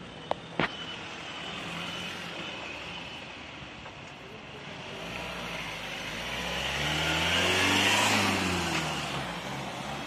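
Ambulance van's engine pulling away and driving past, growing louder to a peak about eight seconds in with tyre and road noise, then easing off. Two sharp knocks come within the first second.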